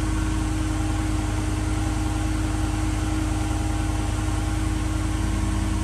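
2023 Ford F-150 Platinum's engine idling steadily, a low, even hum.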